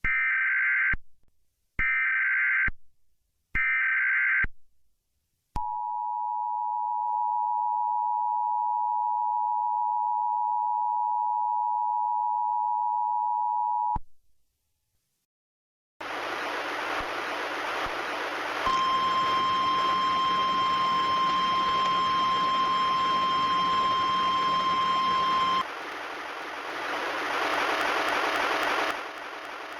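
Emergency Alert System broadcast tones: three short screeching SAME header data bursts, then the two-tone EAS attention signal held for about eight seconds. After a short silence comes radio static, with the single steady NOAA Weather Radio warning alarm tone sounding for about seven seconds over it.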